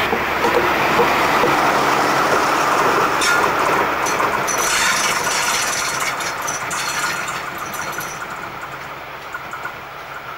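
VT 08 diesel multiple unit passing close by and running away along the track, with a rush of engine and wheel noise that fades steadily as it recedes. Around the middle there is a spell of sharp clicks from the wheels on the rails.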